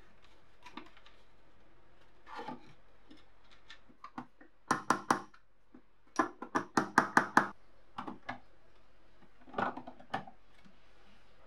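Sharp taps on a small metal clip being driven into the scale's plastic housing with a red-handled punch: four taps, then a quicker run of about eight. Lighter handling clicks follow near the end.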